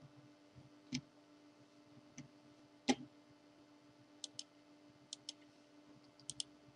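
Computer mouse clicks: a couple of duller knocks in the first half, then three quick double clicks in the second half, over a faint steady hum.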